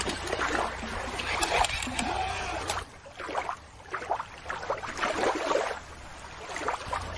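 Shallow water lapping and splashing as a toy is moved through it, with a steady low wind rumble on the microphone. About three seconds in, the rumble stops and a quieter, irregular water sound follows.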